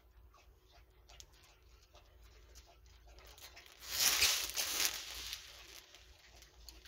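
Clear plastic zip bags of diamond painting drills crinkling as they are handled: faint scattered ticks and rustles, then a louder rustle of about a second some four seconds in.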